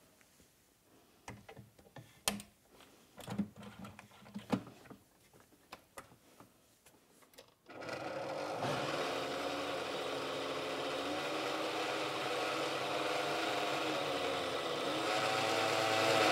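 A few clicks and knocks as the blender jar is fitted onto a Kenwood Cooking Chef kitchen machine, then about eight seconds in its blender attachment starts and runs steadily, mixing a pumpkin smoothie.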